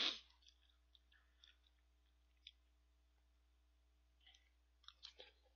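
Close-miked eating sounds: one short, loud noise right at the start, then faint scattered clicks of a spoon in a cup of ramen and rice, with a cluster of mouth and chewing noises about four to five seconds in.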